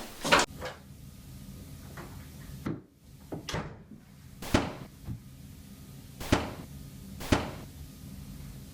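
A series of sharp knocks or bangs, about eight of them at irregular spacing, with the loudest near the start and two more strong ones past the middle.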